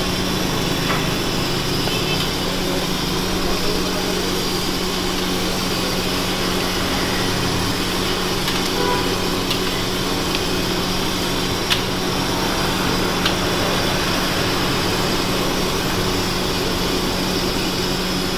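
Steady mechanical hum with a rushing noise, broken by a few light clicks.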